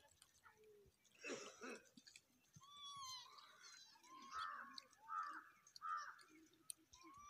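Faint animal calls: a few short rising-and-falling calls, several close together in the middle, and a quick run of high chirps about three seconds in.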